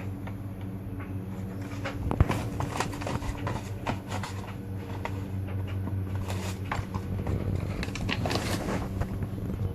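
A Cavalier King Charles Spaniel puppy tearing at a cardboard tissue box: irregular crackling, rustling and scraping, with a sharp knock about two seconds in, over a steady low hum.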